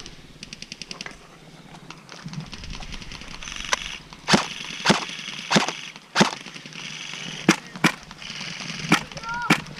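Airsoft gunfire: a quick rattle of ticks in the first second, then about nine sharp single snaps spaced half a second to a second apart.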